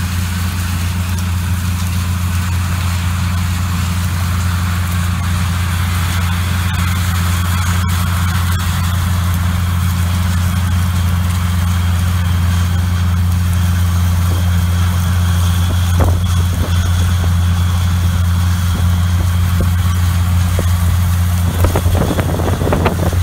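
John Deere 9400 four-wheel-drive tractor's Cummins N14 six-cylinder diesel running steadily under load while pulling a wide tine harrow: a constant low drone.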